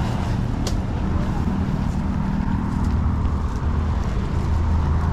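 Motor vehicle engine running nearby, a steady low hum with road noise.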